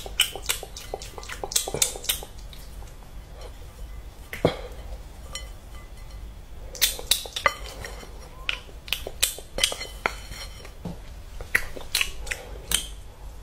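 Irregular clinks and taps of a glass bowl being handled, with a metal spoon knocking against the glass as peeled boiled eggs are coated in spice powder.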